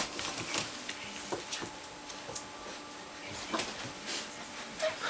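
Scattered light taps and scuffles from Old English Sheepdog puppies moving about on a wooden floor and rug.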